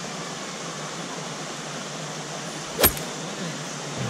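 Shallow stream water running over stones, a steady rushing hiss, with one sharp click about three seconds in.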